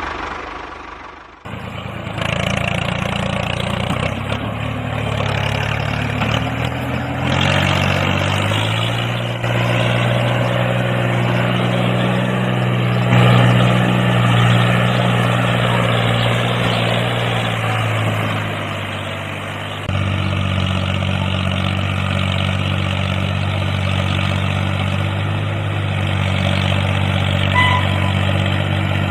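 Tractor engine running steadily with an even low drone. The sound changes abruptly about a second and a half in, and again at about twenty seconds.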